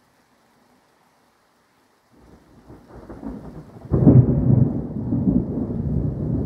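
Thunder: a low rumble starts about two seconds in and grows, then a sudden loud clap about four seconds in rolls on into a long, loud rumble.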